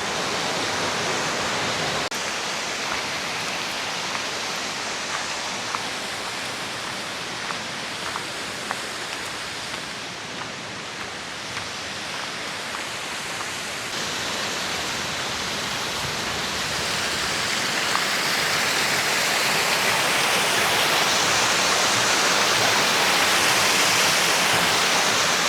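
Waterfall: steady rushing and splashing of falling water, growing louder over the last third.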